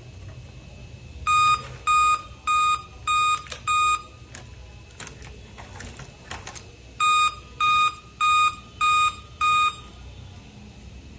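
An electronic beeper sounds two groups of five short beeps about 0.6 s apart, one group starting about a second in and the next about 7 seconds in. The pattern repeats like a coded signal. Light clicks fall between the groups.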